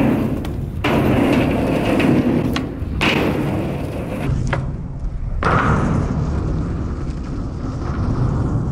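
Skateboard riding back and forth on a mini ramp: the wheels rumble over the ramp surface, with a few knocks as the board turns on the walls.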